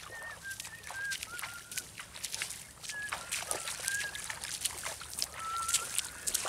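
Footsteps splashing through ankle-deep seawater at the shoreline, getting louder toward the end as the walker comes closer. A bird gives short, repeated whistled calls throughout.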